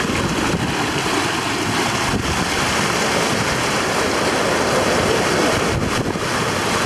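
Sea water rushing and breaking along the hull of a sailing yacht under way in rough seas, mixed with wind buffeting the microphone: a steady loud rush.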